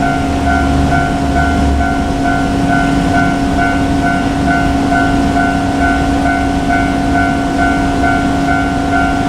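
Japanese level-crossing warning bell ringing in a steady, even pulse about twice a second, over the low rumble of a JR Kyushu KiHa 47 diesel railcar.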